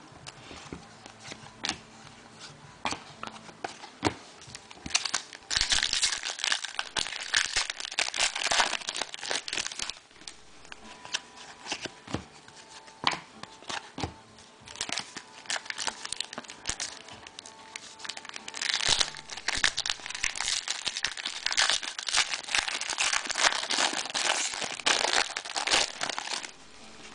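Trading cards and foil packs being handled: crinkling and rustling with quick flicking clicks as cards are slid and flipped through, in two busier stretches.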